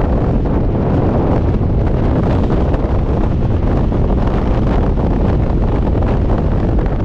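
Steady, loud rush of freefall airflow buffeting the camera microphone: the wind of a skydive in a linked formation.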